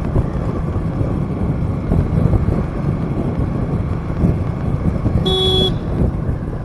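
Steady rumble of road traffic and wind on the microphone, with one short vehicle horn honk a little over five seconds in.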